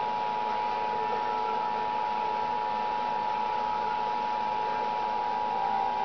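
Emergency Alert System two-tone attention signal: two steady tones, near 853 Hz and 960 Hz, sounded together without a break.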